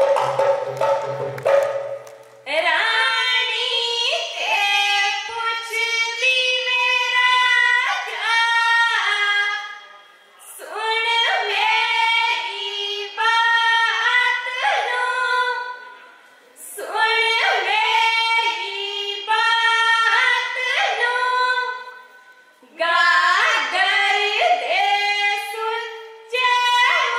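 Women singing a Punjabi folk song for a Giddha performance through stage microphones, in long phrases with short breaths between them and no drum. A sustained note sounds for the first two seconds before the singing begins.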